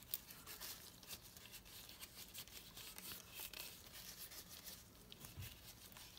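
Faint, irregular scratchy rubbing and handling of a leather knife sheath by a gloved hand.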